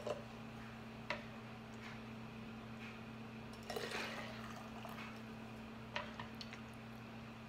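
Hot broth poured from a plastic ladle through a plastic funnel into a glass jar: a brief pour with dripping about halfway through, and light clicks of the ladle against the funnel and the bowl about a second in and near the end. A steady low hum runs underneath.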